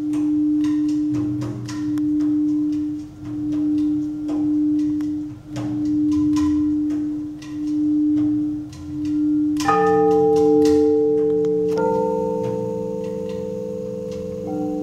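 Crystal singing bowls ringing. One steady tone swells and fades in a slow pulse about every second and a half, with faint taps over it. About ten seconds in a second bowl is struck, adding higher ringing tones, and more bowl tones join near twelve seconds and just before the end.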